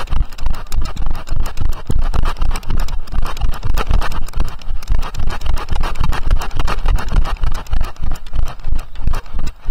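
Ridden horse moving briskly over grass: hoofbeats as an even run of heavy thumps, about three or four a second, with the jolting and rubbing of a camera carried on the rider.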